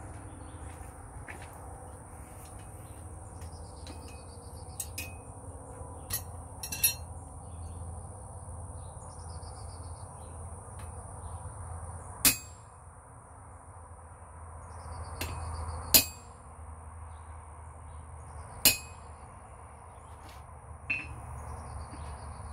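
Hammer blows on a hand-held chisel set on red-hot iron on an anvil: single sharp metallic strikes, irregular and several seconds apart, each with a brief ring. Under them runs a steady high insect buzz.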